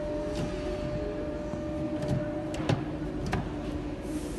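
A few light knocks and clicks as a white drawer is handled against the coffee table's frame, over a steady background hum. A faint whine in the hum stops about two and a half seconds in.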